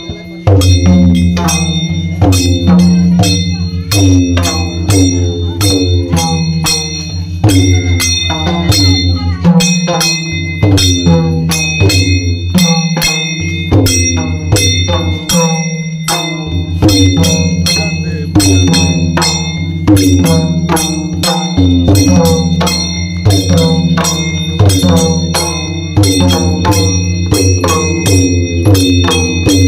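Devotional folk drumming: mandar barrel drums beaten in a quick, steady rhythm, with small brass hand cymbals ringing throughout, over a low steady drone.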